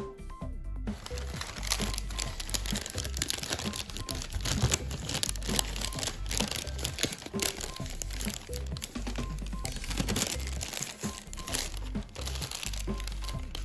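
Origami paper crinkling and crackling in irregular bursts as it is folded and creased, starting about a second in, over background music.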